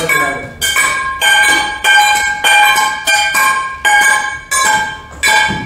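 Metal cooking pots being beaten in a steady beat of about two strikes a second, each strike ringing on.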